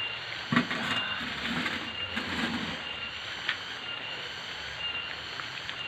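A potted plant set down with a knock in a pickup truck's bed about half a second in, and a lighter knock a few seconds later, over a steady hiss with a faint high tone that comes and goes.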